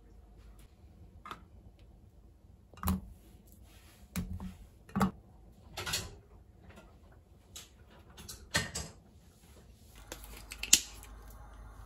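Scattered light knocks and clunks of kitchen handling, about eight separate ones, as pieces of radish, potato and onion are set into a nonstick pot. A faint steady hum comes in near the end.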